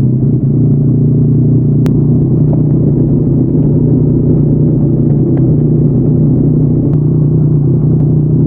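Yamaha MT-09's inline three-cylinder engine running through a Yoshimura R55 slip-on exhaust, idling steadily at an unchanging pitch.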